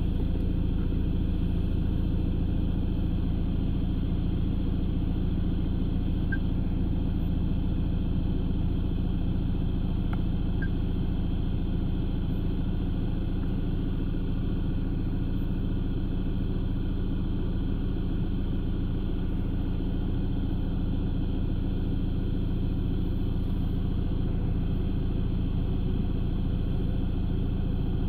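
Camper van engine running steadily, heard from inside the cab: an even low rumble that holds one pitch.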